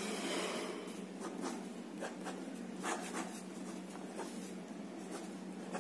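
Pen scratching across a lined notebook page in a series of short, quick strokes, drawing underlines and border lines around a heading.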